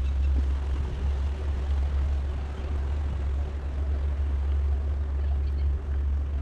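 Steady low rumble of wind buffeting a bike-mounted action camera's microphone while riding a road bike.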